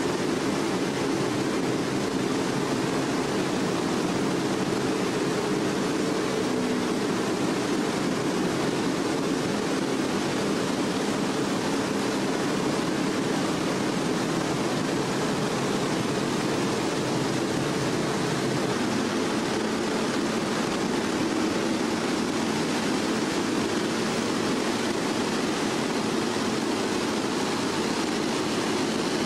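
Steady rush of water spilling from a giant wooden noria (water wheel) and churning in the river below it.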